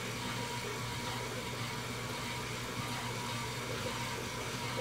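KitchenAid stand mixer running steadily with a constant hum, beating psyllium bread dough.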